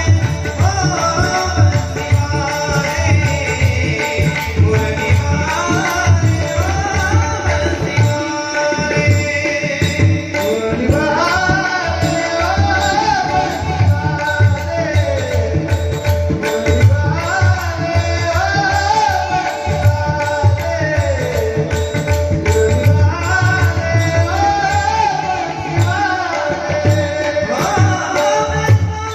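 Marathi gaulan bhajan: a male voice sings gliding, ornamented melodic lines over a steady held note, with tabla and pakhawaj drumming a dense, continuous rhythm underneath.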